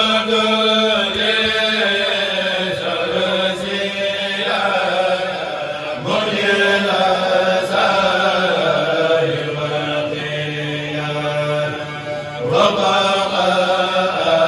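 Men's voices chanting a Mouride xassaïd (Arabic devotional poem), with long held notes. A new phrase begins about six seconds in and again near the end.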